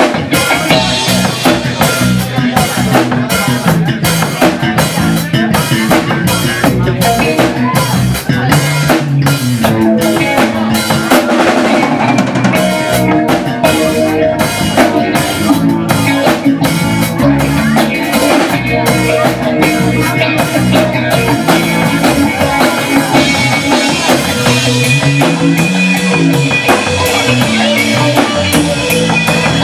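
Live rock band playing: a drum kit keeping a steady beat under electric guitar and electric bass.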